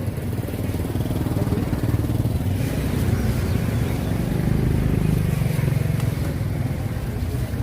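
A small engine running steadily, getting a little louder around the middle.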